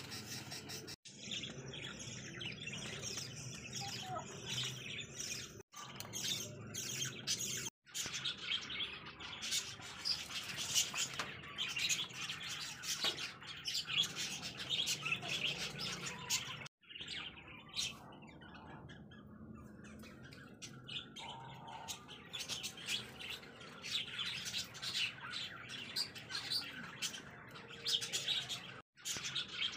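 Many small cage birds chirping busily and without pause, dropping out suddenly for a moment several times.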